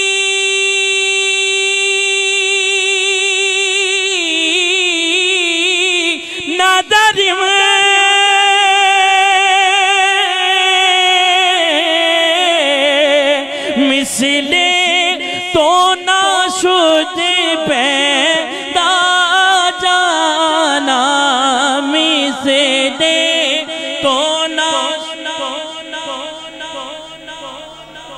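A man's voice singing a devotional kalam (naat) through a microphone: one note held for about four seconds, then long drawn-out runs that wander up and down in pitch with quick trills, trailing off near the end.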